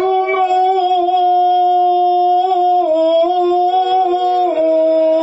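A male shigin singer holding one long, drawn-out note in the slow chanted style of shigin, with a couple of small steps in pitch along the way.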